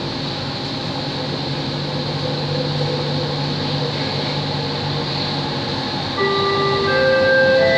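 Elevated metro train running, heard from inside at the front: steady rail and motor noise with a low hum. About six seconds in it gets louder and a few held tones at stepping, rising pitches sound over it.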